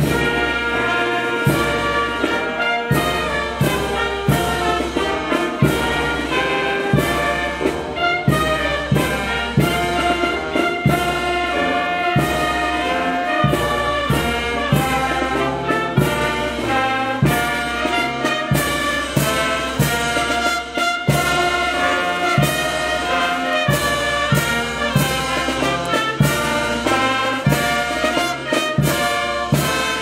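Military brass band playing: trumpets and other brass hold a tune over a steady drum beat.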